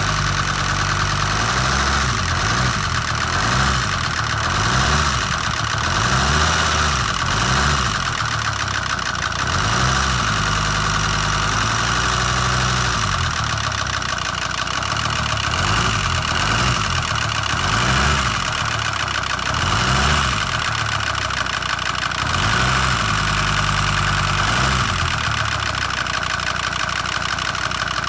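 Volvo V70 D5's five-cylinder turbodiesel engine idling just after start-up. A steady higher-pitched noise sits over the engine note, and a low pulsing rises and falls every second or two; this is the start-up noise being shown as a possible fault.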